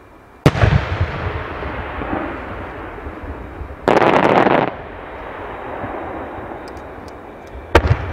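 Aerial fireworks shells bursting. There is a sharp boom about half a second in with a long rumbling echo, a loud rushing burst just under a second long around the middle, and two more sharp bangs close together near the end.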